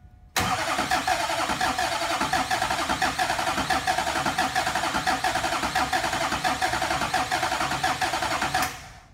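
The Duramax 6.6 V8 diesel is cranked by its starter for about eight seconds. It does not catch: the cranking starts suddenly and cuts off abruptly. It is being cranked to purge air after new injectors were fitted and the fuel system bled.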